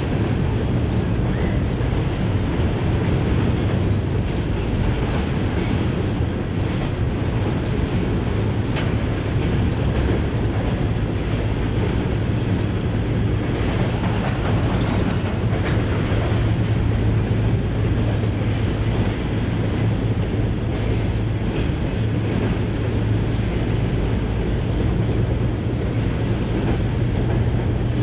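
Long coal train of loaded hopper cars rolling steadily across a steel truss swing bridge: a continuous rumble with a steady low drone underneath.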